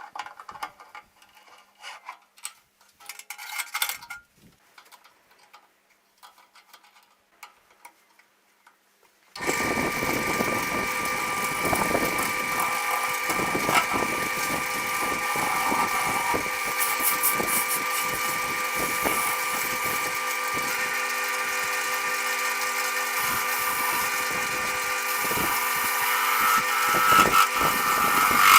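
Light knocks and handling clicks, then about nine seconds in a wood lathe starts and runs steadily with a constant whine while a turning tool cuts the spinning birch.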